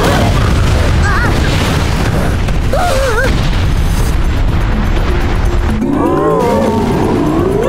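Cartoon sound effects of falling meteors and an erupting volcano: a heavy booming rumble over dramatic music, with short wavering cries around the first and third seconds. In the last two seconds the rumble eases and rising, gliding animal-like calls sound over the music.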